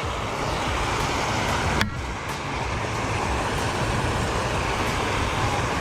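Water rushing steadily out of an outflow into the water, an even rushing noise, with a single brief click about two seconds in.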